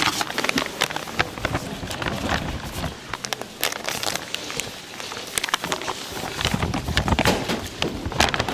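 Busy kitchen handling sounds: a run of irregular clicks, knocks and crackles over a steady noisy background.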